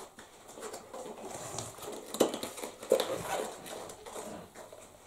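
Handling noise as a bicycle tire's bead is worked over the rim by hand without tools: rubber scuffing and rubbing against the rim, with clothing rustling close to the microphone. Two louder sounds come about two and three seconds in.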